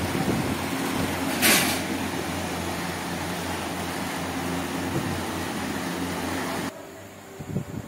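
Desert air cooler's 18-inch iron-bladed exhaust fan, driven by a single-phase motor, running with a steady rush of air and a low hum. A brief hiss comes about a second and a half in, and the sound drops away sharply near the end.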